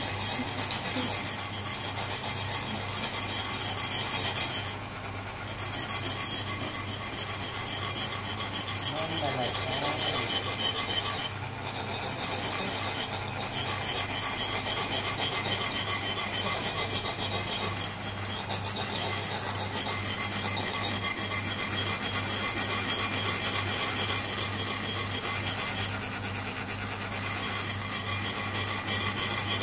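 Tibetan chak-pur, ridged metal sand funnels, being rasped with a metal rod drawn along their ridges. The vibration trickles coloured sand out onto a sand mandala. Several of them rasp at once in a continuous, fine scraping.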